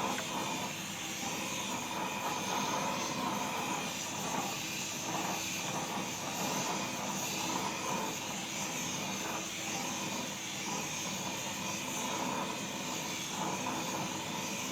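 Propane torch flame burning with a steady roar, heating the tractor's engine block around the cylinder bores before the cold liners go in.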